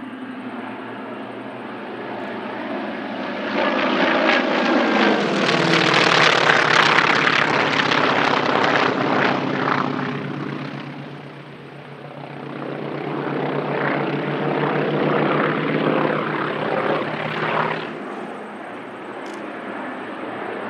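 Two North American T-28 Trojans' radial engines and propellers droning overhead in a formation pass. The sound swells to a peak a few seconds in as the pitch drops with the pass, dips briefly around the middle, then comes up again before easing off near the end.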